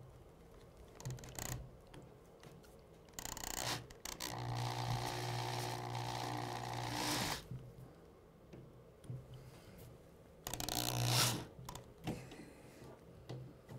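Electric drill fitted with a screwdriver bit driving a wood screw, its motor running in bursts: a short spurt, then one steady run of about three seconds, then another brief burst near the end.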